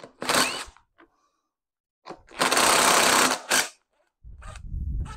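Cordless impact driver undoing the M6 nuts on a turbo top hat in short bursts of rapid hammering, the longest lasting about a second. A lower rumble comes near the end.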